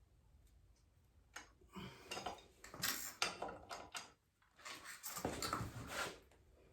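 Metal tools and bike parts clinking and clattering as they are handled, in two spells of clatter: one from about one and a half to four seconds in, another from about five to six seconds in.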